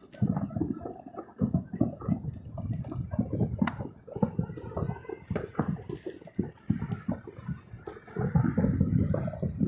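Distant fireworks going off in a continuous run of muffled booms, with a sharper crack a little under four seconds in.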